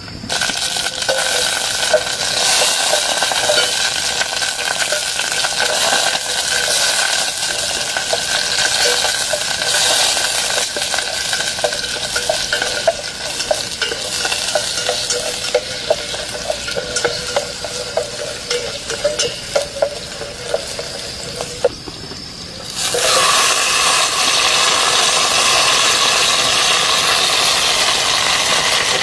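Wild vegetables stir-frying in a pan: a steady sizzle with many small scrapes and clicks of the stirring utensil. About 23 s in, after a brief dip, a louder, steady hiss starts and holds.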